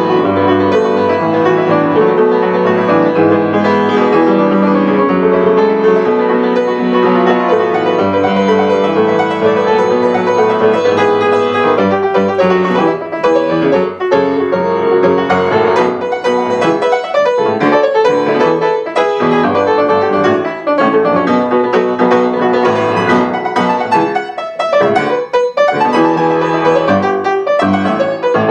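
Solo grand piano playing dense, sustained chords. About halfway through, the playing turns more broken up, with short gaps between notes.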